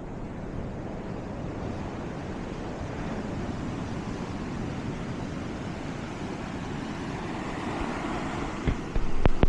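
Sea surf washing onto the shore in a steady rush, swelling a little toward the end, with wind on the microphone. Near the end come two sharp knocks and a brief louder spell.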